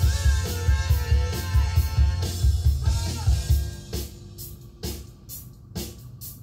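A song playing back from a Ministry of Sound portable CD player: a sung melody over a heavy bass beat, which drops away about four seconds in, leaving sparser drum hits and bass.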